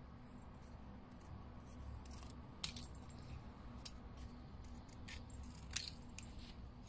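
Scissors making a few short, scattered snips while cutting tiny paper shapes, faint over a low steady hum.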